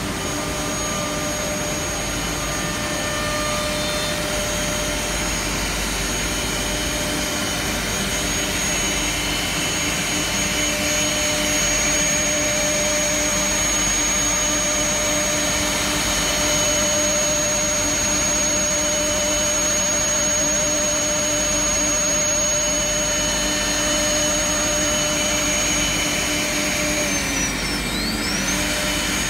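Five-head CNC mortising machine, its electric router spindles running at high speed and milling mortises into wooden workpieces: a steady high whine over machine hum. Near the end the whine drops in pitch.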